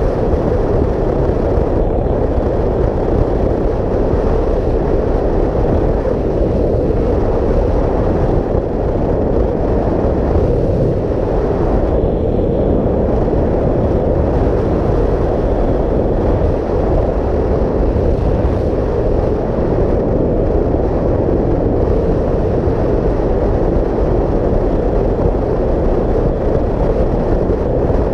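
Kawasaki Vulcan 900 cruiser motorcycle at a steady road speed: constant, loud wind rush over the microphone with the V-twin engine running underneath.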